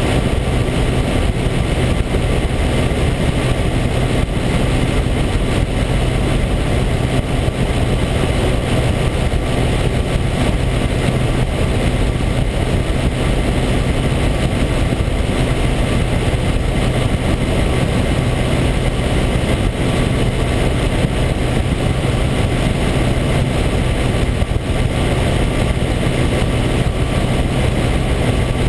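Motorized hang glider (weight-shift microlight trike) in cruise: its engine and propeller drone at a steady, unchanging pitch, mixed with wind rushing over the microphone.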